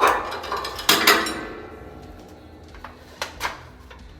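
Metal clanking as the winch hook is hooked onto the snowplow's frame: two loud clanks about a second apart, each ringing briefly, then a few lighter clicks near the end.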